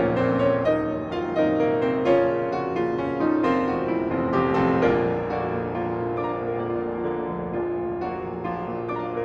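Steinway grand piano played solo: a flowing passage of many overlapping notes, fullest in the first half and gradually softening over the last few seconds.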